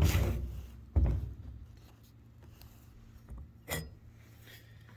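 Two dull thumps about a second apart, then a light click near four seconds in: fuel and oil containers being set down and handled while a chainsaw is refuelled.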